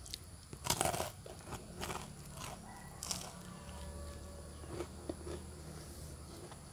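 Crunching bites and chewing of a crisp pisang goreng (fried banana fritter), with the loudest crunches about a second in and again around three seconds.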